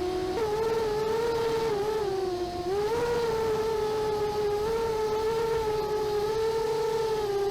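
A small, high-revving engine running steadily, its pitch wavering and dipping slightly a few times.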